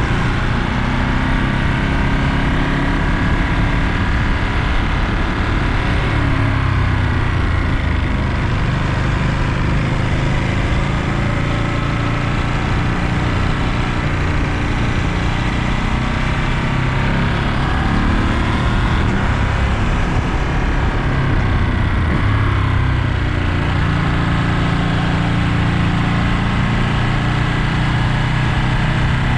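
Ducati Monster 937's 937 cc L-twin engine running under way, its pitch rising and falling several times as the rider accelerates and eases off.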